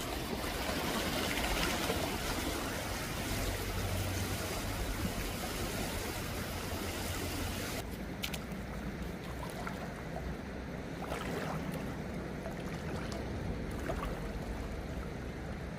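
River water running over shallows, a steady rush. In the second half come a few soft splashes as a person wades through the shallow water.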